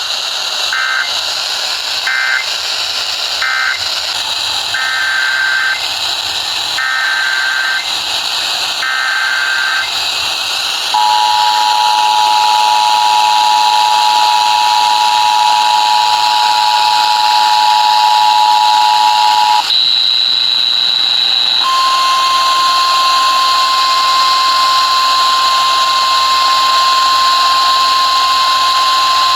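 Emergency Alert System tones between two alerts: three short warbling data bursts (the end-of-message code), then three longer data bursts (the SAME header of the next alert), then the two-tone attention signal held for about nine seconds. After a brief break comes a single steady alert tone for about seven seconds, all over a steady radio hiss.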